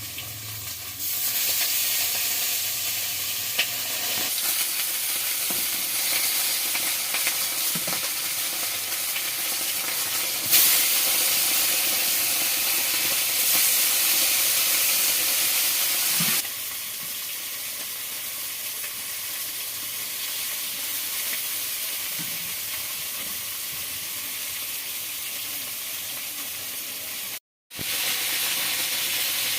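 Pieces of rohu fish frying in hot oil, a steady sizzle that grows louder about a second in and drops back partway through. It breaks off for a moment near the end.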